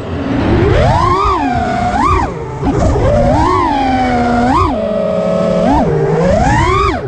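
FPV quadcopter's four brushless motors (Hypetrain 2207, 2450 kV) spinning 5-inch props, recorded by the drone's onboard camera: a high motor whine that climbs and drops with throttle punches, about six rising-and-falling surges.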